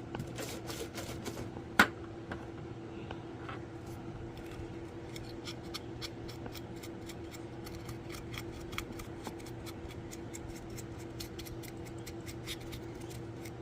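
A cloth dampened with alcohol rubbing the metal battery terminals inside a handheld CB radio's battery compartment: rapid scratchy rubbing and small clicks, with one sharp click about two seconds in. A steady low hum runs underneath.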